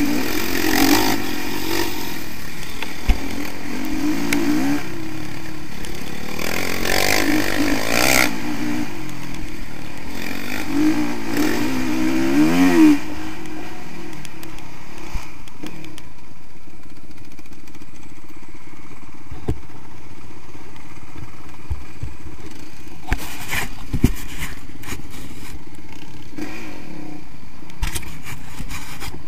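Single-cylinder four-stroke engine of a Honda CRF 450R dirt bike heard from on board while riding. The revs rise and fall through the first half, climbing hardest just before the middle, then the engine runs steadier and duller, with a few sharp knocks from the bike over the rough track.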